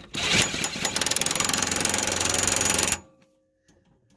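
DeWalt DCF894 cordless 1/2-inch impact wrench hammering on a bolt in rapid, even blows for about three seconds, then it stops abruptly.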